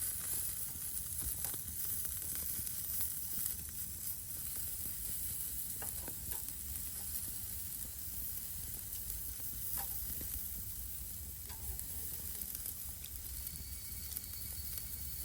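Food sizzling in a frying pan: a steady hiss with a few faint clicks.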